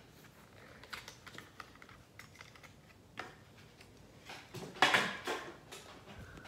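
Hot Wheels blister pack being opened by hand: scattered clicks and crackles of plastic and card, with a louder cluster about five seconds in.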